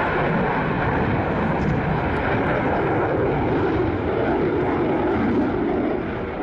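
F/A-18 fighter jet's twin jet engines, a loud, steady jet noise.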